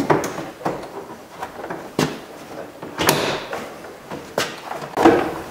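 Interior door trim panel of a 2001 VW Passat being pulled out and lifted off the door. Its plastic panel and freed clips give about five sharp clicks and knocks spread over several seconds, between softer handling noise.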